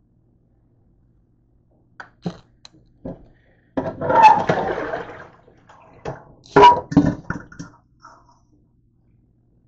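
A metal pot being washed by hand in a stainless steel sink: a few knocks against the sink, then about a second and a half of sloshing water a little before halfway, then a run of clanks and splashes.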